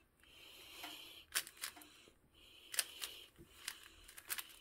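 Stickerless 3x3 puzzle cube being turned by hand: a string of short, sharp plastic clicks as its layers are rotated, about seven in all, unevenly spaced.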